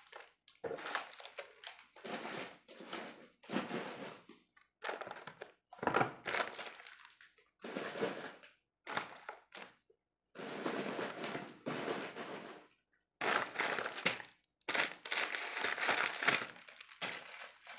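Plastic and foil snack wrappers crinkling as wrapped chocolate packets are handled and packed into a suitcase, in repeated bursts a second or two long with short pauses between.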